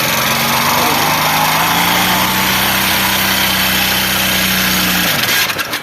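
Honda Bros 150 single-cylinder four-stroke engine running with its top cover off. It is loud and noisy, its revs rise slightly about two seconds in, and it is switched off and runs down near the end. The top end is dry: oil is not rising to the rockers and camshaft, and the noise came on after a clutch disc change.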